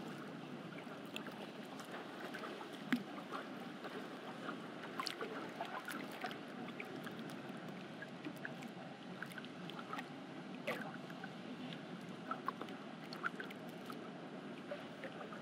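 Outdoor swimming pool ambience: a steady wash of pool water with scattered small splashes and ticks.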